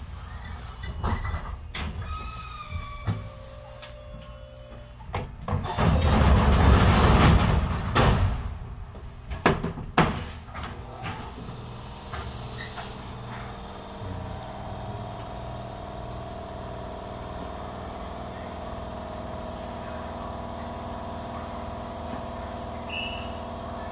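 Train's pneumatic sliding doors at a station stop: a loud rush of air about five seconds in, then several sharp knocks as the doors move and shut. After that, a steady hum from the standing train, with a short high beep near the end.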